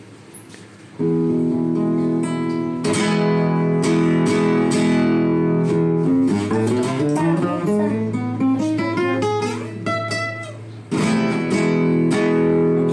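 Nylon-string classical guitar played live. After a quiet first second come strummed chords, then a run of single plucked notes in the middle, then another strummed chord near the end.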